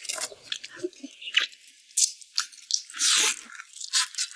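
Close-up chewing and biting on pork ribs: a run of sharp crunches, with one longer, louder crunch about three seconds in.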